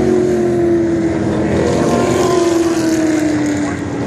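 A pack of V8 Trans Am race cars passing at speed, engines running hard, their note sliding slowly down in pitch as they go by.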